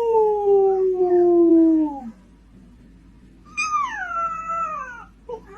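Dog howling: one long call that rises, then slides slowly down in pitch, followed after a pause by a second, higher call that falls away.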